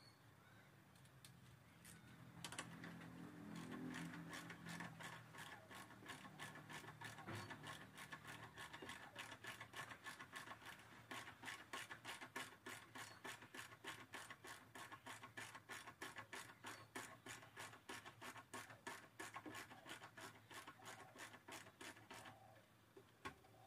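Faint ratchet wrench clicking in a rapid, even run as the battery hold-down nuts are loosened. It starts a few seconds in after some scraping and stops shortly before the end.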